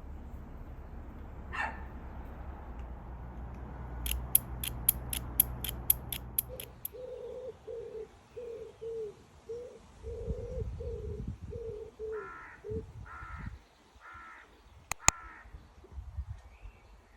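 Birds calling: a quick run of sharp ticks, then a string of about a dozen short calls roughly two a second, then four higher, harsher calls.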